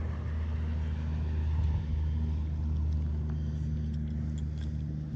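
Steady low engine hum, with a few faint clicks about four seconds in.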